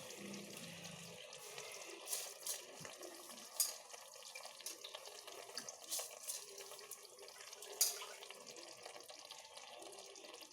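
Soaked rice being tipped into a pressure cooker of half-cooked chicken masala: a faint wet pattering and dripping, with scattered small clicks.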